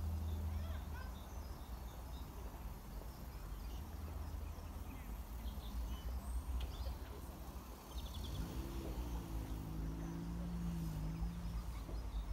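Outdoor ambience: a steady low rumble with small birds chirping now and then. About eight seconds in, a low droning sound joins for about three seconds.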